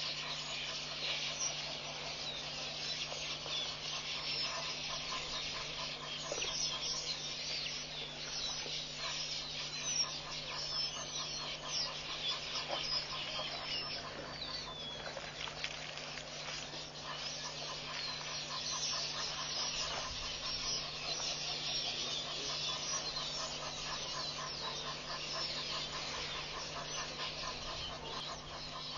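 Dense chorus of many birds chirping and chattering without pause, over a steady low hum.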